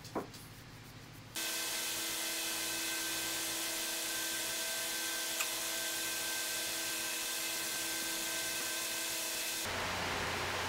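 A short rising squeak, then a steady rushing hiss with a faint steady hum that starts suddenly about a second and a half in and runs on evenly, like machine or fan noise in a workshop.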